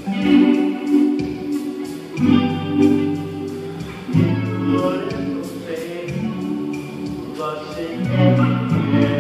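Acoustic guitar played in a slow ballad, chords ringing and changing about once a second, with a man's voice singing along.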